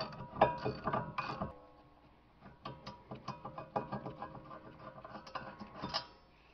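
Socket ratchet backing out a 13 mm rear brake caliper bracket bolt, which is stiff and, as the mechanic suspects, threadlocked. For about the first second and a half there are sharp metal clinks and clacks, then a quicker run of lighter clicks from the ratchet's pawl until near the end.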